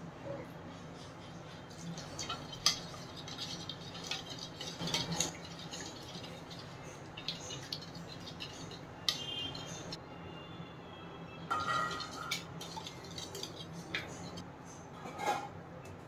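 A wire whisk clinking and scraping against a ceramic bowl as eggs and milk are beaten, with scattered sharp knocks and clinks of utensils on the bowl, a few of them ringing briefly.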